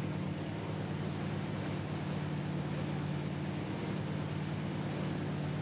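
Towboat's engine running steadily under way, a low even drone over a steady rushing hiss.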